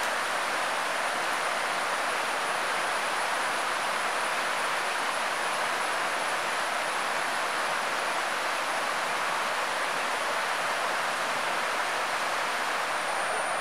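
Steady rush of stream water running, an even hiss with no breaks, with a thin, steady high-pitched tone above it.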